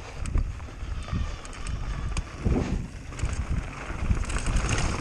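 Wind buffeting the camera's microphone on a mountain bike descending fast, with low rumbling from the rough ground and scattered sharp knocks and rattles from the bike.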